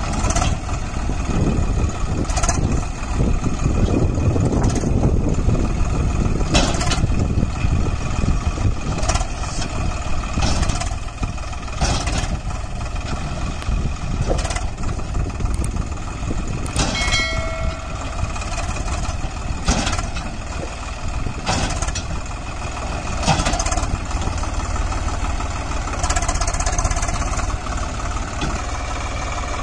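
Swaraj 744 FE tractor's three-cylinder diesel engine running steadily at low speed while it pulls a raised tipping trolley, with a sharp knock every second or two.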